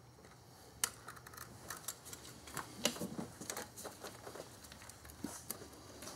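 Scattered light clicks, taps and rubbing as gloved hands work a utility knife and a rubber throttle body heater hose in an engine bay, the sharpest clicks about a second in and around three seconds in.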